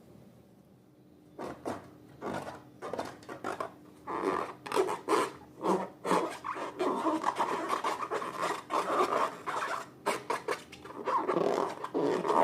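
Slime being mixed and worked: repeated scraping and rubbing strokes, starting about a second and a half in and coming thick and fast from about four seconds on.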